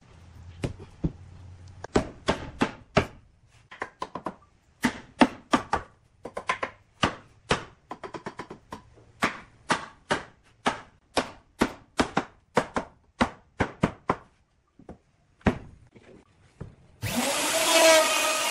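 Repeated sharp wooden knocks, often in quick pairs or triples, as the top rail is driven down onto the tenons of a wooden bed-frame panel. About 17 seconds in, a handheld electric router starts and runs steadily, cutting into the wood frame.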